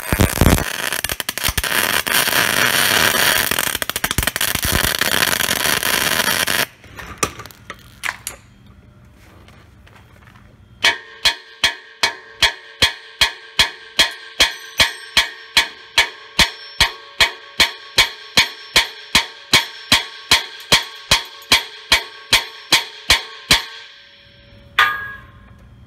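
Welding arc crackling steadily for about six and a half seconds as a short bead is laid over a cracked plug weld between a steel axle tube and the cast-iron housing of a Chevy 12-bolt axle. After a pause, a hammer pounds on the weld in an even run of about three blows a second for some twelve seconds, and the metal housing rings after each blow.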